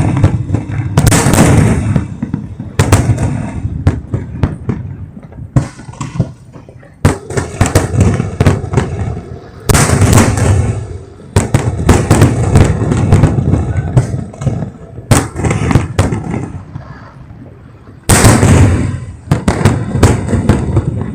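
Aerial fireworks shells bursting at close range: a string of deep booms a second or a few seconds apart, with crackling in between.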